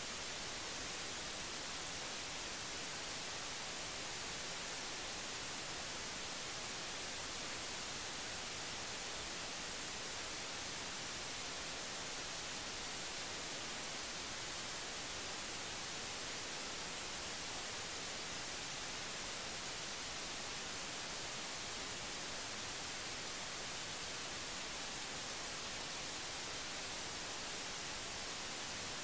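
Steady hiss of radio static from an RTL-SDR receiver demodulating in USB mode at 433.92 MHz, with no signal coming through.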